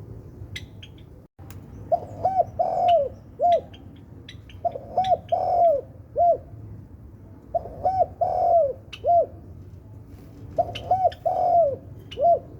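Spotted dove singing its cooing song: four phrases in a row, each a few short coos around a longer drawn-out coo and a short final note, repeating about every three seconds. Faint high chirps or ticks sound here and there.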